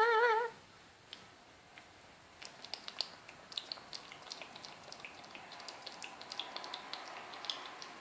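Black-capped lory: a loud, wavering whistle-like note cuts off about half a second in, followed after a quiet gap by a long run of soft, irregular high clicks and ticks.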